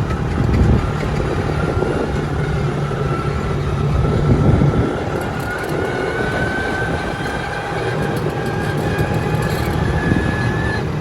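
ATV engine running steadily while riding, with a thin high whine that slowly rises in pitch.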